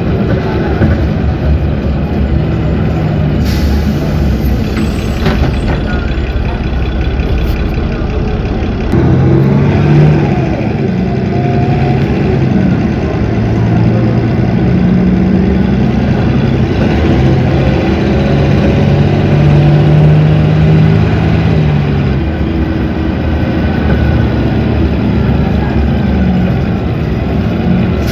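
Cummins ISB 6.7 inline-six turbodiesel of a city bus running, then pulling harder about nine seconds in, its note rising and stepping as the bus accelerates.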